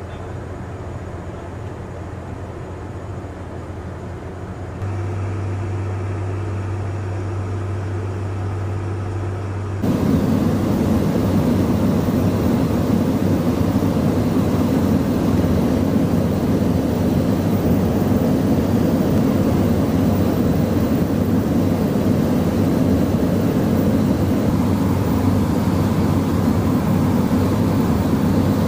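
Airbus A400M's four turboprop engines droning steadily inside the cockpit, a low hum with a few fixed tones that gets a little louder about five seconds in. About ten seconds in it jumps to a much louder steady rush of airflow and engine noise during air-to-air refuelling.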